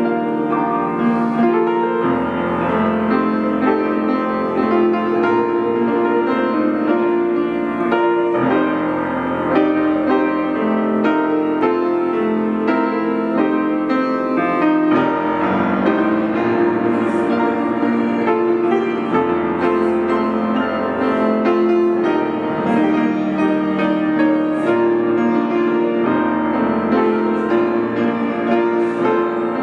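Grand piano being played: a slow tune in full sustained chords.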